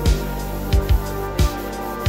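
Background music with a steady kick-drum beat.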